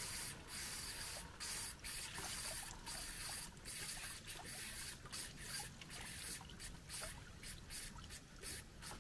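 Spring water running from a fountain spout into a plastic water bottle as it is filled, a steady trickle with small irregular splashes.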